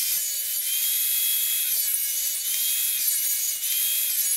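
Ryobi RTS1800G table saw running and ripping thin strips of wood, a steady high whine over a hiss of cutting; the pitch sags slightly a few times as the blade takes load.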